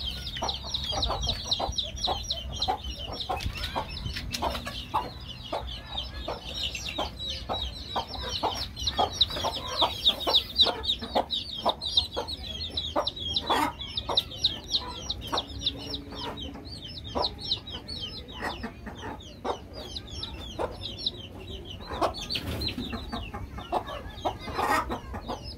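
A flock of chicks peeping constantly, a dense stream of high, short cheeps, with adult chickens clucking and many short sharp clicks among them.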